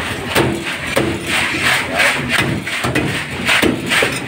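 A busy crowd of many voices talking and calling out at once, with a few knocks.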